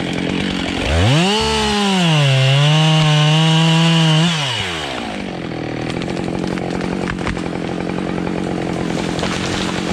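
Husqvarna 572 two-stroke chainsaw revving up from idle about a second in, cutting into beech wood for about two seconds with the engine pitch pulled down under load, then dropping back to a steady idle.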